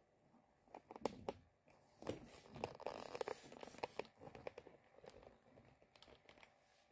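Faint handling noise: rustling and scattered light clicks, busiest in the middle and thinning out near the end.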